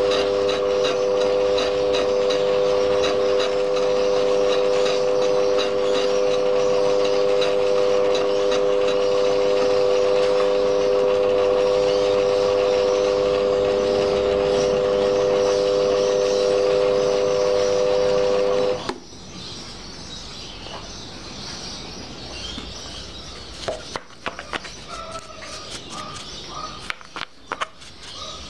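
Lathe running with a fly cutter in the chuck, cutting the end face of a model steam-engine cylinder casting to length: a steady, loud mechanical whine. About two-thirds of the way through the lathe is switched off and the whine stops abruptly, leaving quieter noise with a few clicks and knocks.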